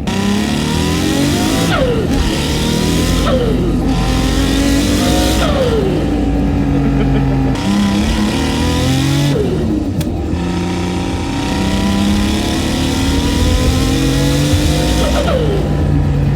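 Turbocharged HKS 2.8-litre stroker RB26 straight-six in an R32 Skyline GT-R, heard from inside the cabin, accelerating hard: the engine pitch climbs and then drops sharply at each of about five gear changes.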